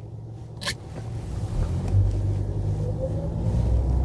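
Low in-cabin rumble of a taxi running, growing louder about a second in and then holding steady, with a single short click just before.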